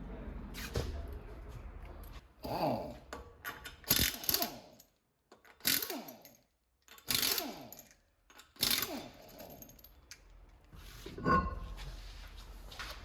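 A workshop power tool run in about six short bursts, each winding down in falling pitch as it stops.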